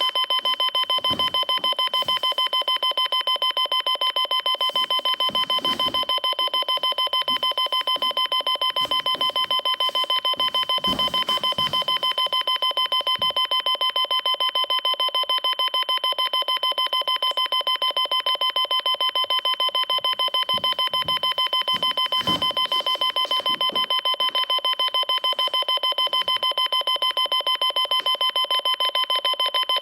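Electronic beep tone repeating in quick, even succession, many beeps a second without a break, a shrill alarm-like sound.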